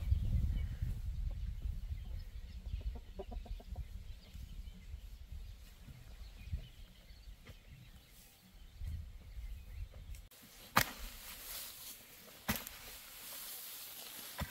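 Chickens clucking over a low rumble. About ten seconds in the rumble stops abruptly and a few sharp knocks follow.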